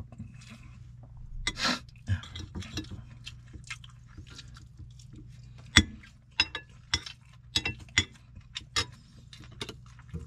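Metal spoon and fork clinking and scraping against ceramic bowls while eating, a string of short taps with the sharpest about six seconds in and a quick run of taps just after.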